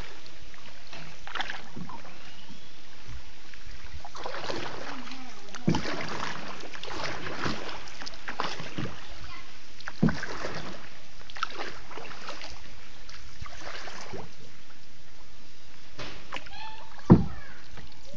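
Small boat being paddled through floodwater: repeated irregular paddle splashes over a steady wash of water noise, with a few sharp knocks, the loudest near the end.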